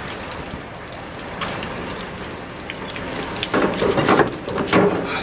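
Low background noise with a few faint clicks, then, from about three and a half seconds in, a run of louder knocks and clatter.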